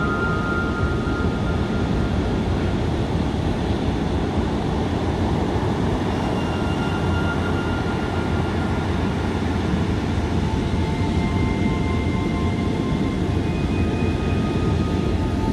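Heavy surf breaking along a sandy beach: a continuous, deep rushing wash of waves.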